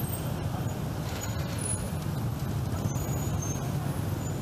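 Steady city street traffic: a continuous low rumble of passing road vehicles.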